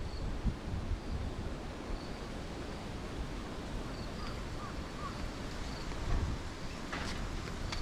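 Wind buffeting the microphone in gusts. Faint, short high chirps repeat about once a second behind it.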